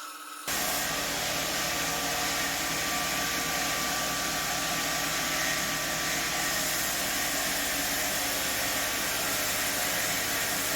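Steady whirring of a motor-driven workshop machine running continuously, starting abruptly about half a second in.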